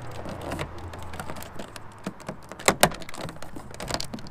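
Hard plastic door handle surround trim on a first-generation Mini R53 door card clicking and tapping as it is handled and pressed into place, with two sharper clicks close together about two-thirds of the way in.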